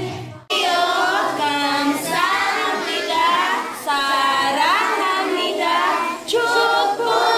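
A group of young schoolchildren singing together in high voices, starting abruptly about half a second in.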